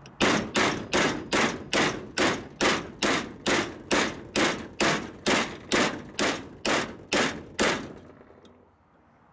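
Hammer blows on steel, a steady run of about nineteen even strikes at roughly two and a half a second, driving a press-fit part home on a Dana 44 front axle; the blows stop near the end.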